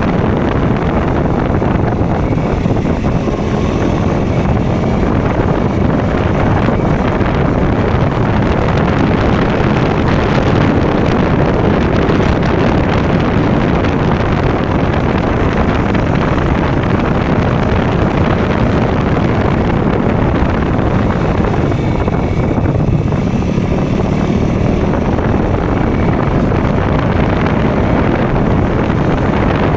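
KTM Duke single-cylinder motorcycle engine running under way at a fairly steady speed, with wind rushing over the microphone.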